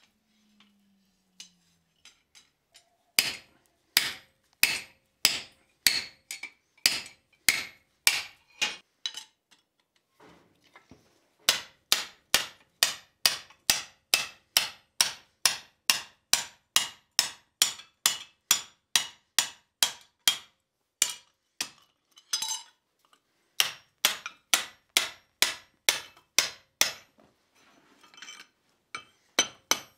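Hand hammer striking a punch held on a red-hot steel bar on the anvil: sharp metal-on-metal blows at about two a second. The blows stop for a couple of seconds about ten seconds in, then run on longer and a little faster.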